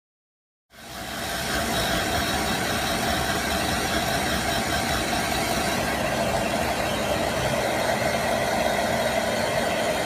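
Hair dryer running steadily, an even rush of air with a motor whine, fading in under a second in.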